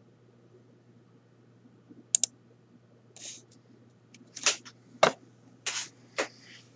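Computer mouse clicking: a quick double click about two seconds in, then several more clicks and short taps, over a low steady hum.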